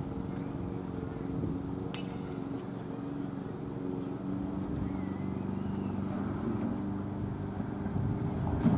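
Background noise of a football game crowd with indistinct voices over a steady low hum, and a sharp click near the end.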